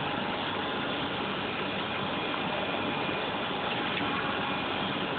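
Steady running noise of a machine: an even whir with a faint constant whine through it.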